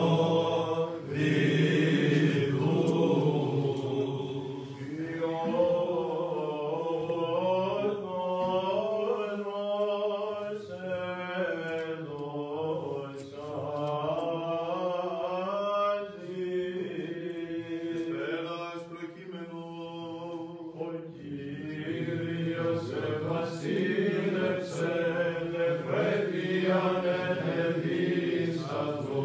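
Byzantine chant: a voice sings a slow, ornamented melody over a steady held drone note (ison).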